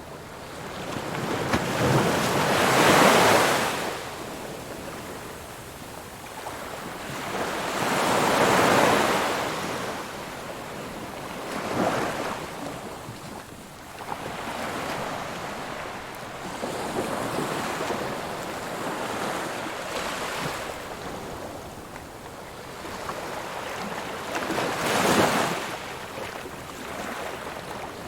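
Ocean waves breaking on a beach in slow surges, each wave building and washing out every few seconds, with the strongest crashes about three seconds in, around eight seconds and near the end.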